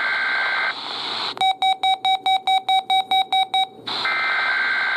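Weather radio sending the digital SAME alert header, a harsh two-tone data screech that ends under a second in and starts again about four seconds in. Between the two bursts comes rapid electronic beeping, about six beeps a second, for a little over two seconds. These are the coded bursts that start a weekly test alert.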